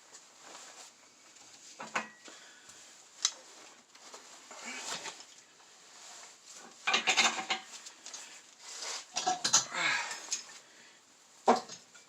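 Metal clinking and rattling of hand tools on engine parts during a Chevy 350 teardown. Single sharp clicks are scattered through, with busier clattering about seven and nine seconds in.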